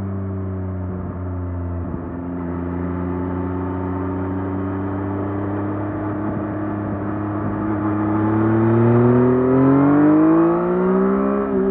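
2024 Yamaha MT-09 SP's 890 cc inline-three on its stock exhaust, holding a steady part-throttle pitch. From about two-thirds of the way in, the revs climb as the bike accelerates, then dip briefly near the end.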